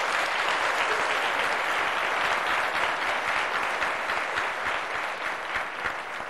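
Large seated audience applauding steadily, the clapping thinning out near the end.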